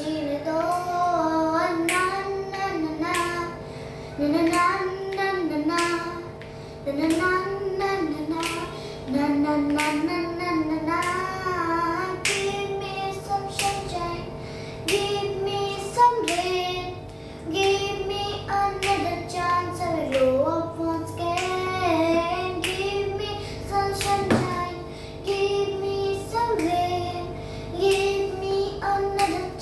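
A young girl singing a song, with hand claps keeping time.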